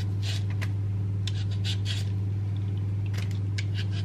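A vegetable peeler scraping the skin off a potato in short strokes, in several quick runs. A steady low hum runs underneath and is the loudest sound.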